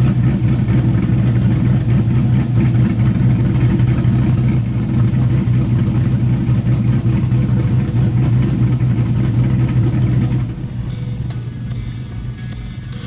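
LQ4 V8 engine of an LS-swapped Chevy C10 pickup running steadily with a deep, even exhaust note. About ten seconds in, the engine sound drops off to a lower level.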